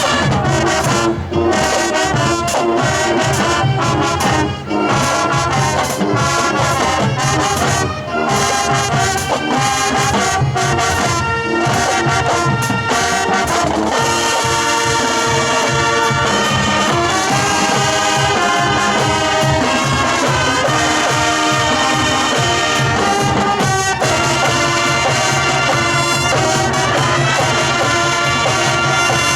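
Marching band playing a rock arrangement, trumpets and trombones carrying sustained chords over a drumline's steady beat, which becomes more even about halfway through.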